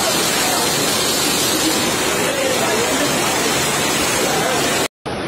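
Floodwater rushing and churning in a loud, steady torrent, with faint voices beneath it; the sound cuts out abruptly near the end.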